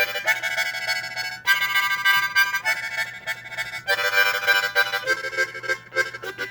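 Instrumental background music: sustained chords that change about every second and a half, breaking into quicker separate notes about five seconds in.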